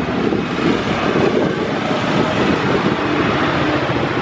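Wind buffeting the microphone of a moving electric scooter, over steady road and traffic noise.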